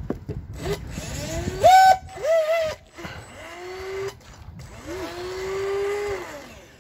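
TFL Pursuit electric RC boat's motor whining in a series of short throttle bursts. The first, about two seconds in, is the loudest and highest, and a brief second one follows. Then come two longer whines whose pitch rises, holds and falls away.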